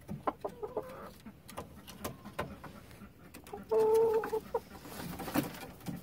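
Chickens clucking, with one held, even-pitched call lasting under a second about four seconds in, among scattered light clicks and scuffs.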